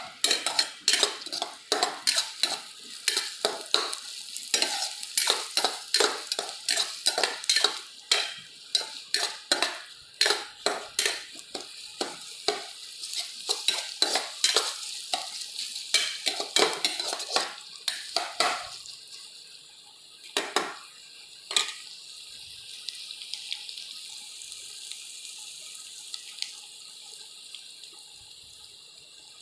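Sliced onions frying in oil in a nonstick pan, stirred with a spatula that scrapes and taps against the pan about two to three times a second. About eighteen seconds in, the stirring stops except for two last strokes, leaving a steady sizzle.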